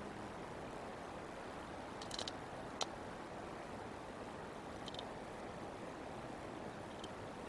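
Steady outdoor hiss with a few short, faint clicks and rustles: a small cluster about two seconds in, a sharper snap just under three seconds in, and fainter ticks near five and seven seconds.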